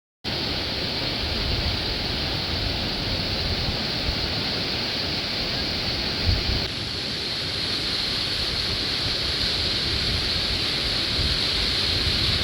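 Whitewater rapids rushing steadily, with gusty wind rumble on the microphone and one short low bump about six seconds in.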